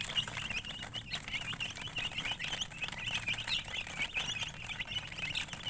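A group of chicks peeping, many short high chirps overlapping several times a second without a break.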